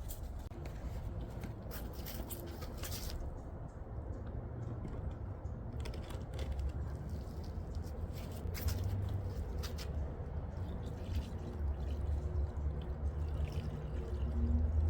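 Water being poured into a shallow container set out as a bird bath: a continuous filling and trickling sound with scattered small splashes and clicks.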